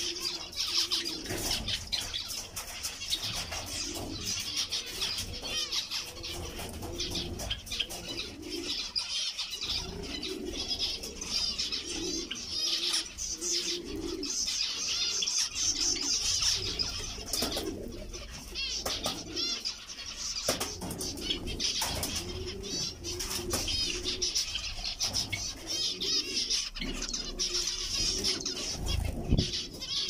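A flock of zebra finches calling constantly while feeding, with many overlapping short, high chirps and beeps. A lower, repeated call runs underneath.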